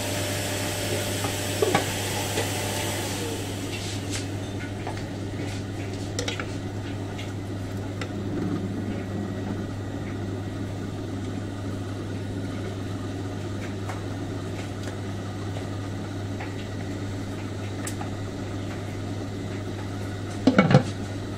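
A pot of simmering soup on a gas hob being stirred with a spoon, with a few light knocks against the pot and a louder clatter near the end, over a steady low hum and hiss.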